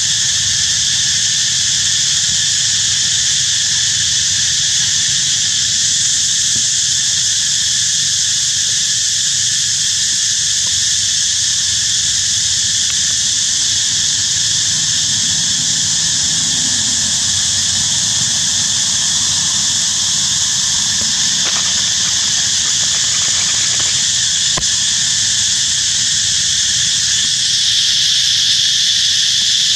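Dense forest insect chorus: a loud, steady high-pitched drone that grows a little louder near the end.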